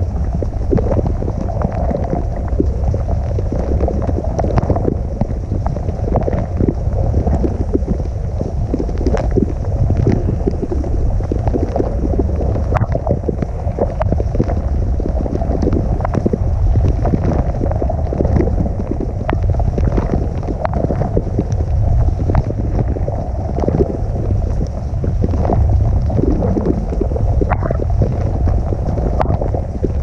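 Dishwasher spray arms jetting water over the dishes and onto the GoPro's housing during the wash cycle, heard from inside the tub: a steady, muffled rushing and spattering over a low rumble, with many small ticks of drops striking.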